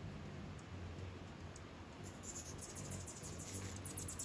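A crowd of hummingbirds at feeders chipping and twittering: quick clusters of sharp, very high ticks and chirps, busiest near the middle and toward the end, over a low steady hum.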